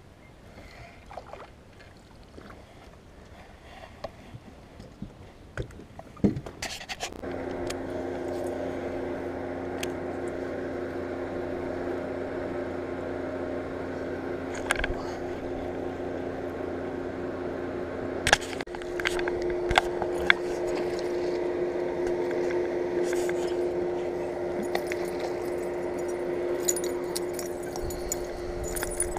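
Electric trolling motor humming steadily. It comes on about seven seconds in and shifts to a higher pitch about two-thirds of the way through as its speed is changed, with scattered clicks and rattles of fishing tackle.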